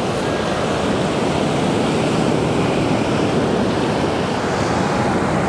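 Ocean surf breaking and washing up the beach, a steady rush, with some wind on the microphone.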